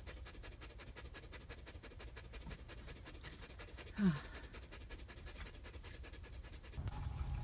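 A husky panting hard and fast, about six pants a second, worn out after a long run. A short falling sound comes about four seconds in.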